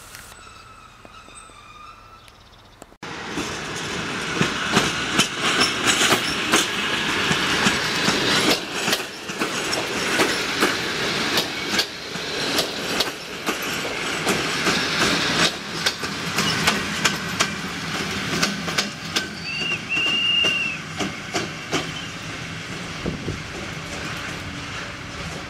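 Passenger train coaches rolling past close by, their wheels clattering in a dense, irregular run of clicks and knocks over rail joints and points, beginning suddenly about three seconds in.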